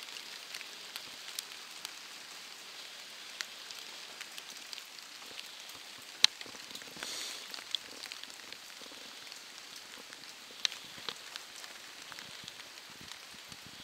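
Steady rain falling, with scattered louder drops striking close by as sharp ticks, the sharpest about six seconds in.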